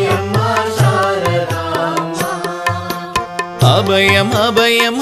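Indian devotional song to Sarada Devi playing as background music: a melody over regular drum beats, growing louder about three and a half seconds in.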